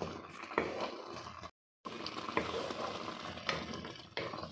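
Wooden spatula stirring and scraping through thick plum chutney simmering in sugar syrup in a metal pan, with bubbling and repeated scrapes against the pan. The sound drops out completely for a moment about a second and a half in.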